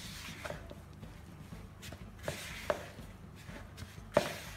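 Rubber spatula stirring flour, water and sourdough starter in a bowl at the first mix, while dry flour is still being worked into a rough dough: soft scraping with a few light knocks against the bowl, the sharpest about four seconds in.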